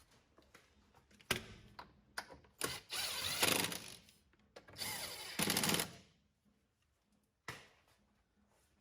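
Power tool running in three short bursts of about a second each, driving in the 10 mm bolts of the splash guard plate, with a few sharp knocks in between.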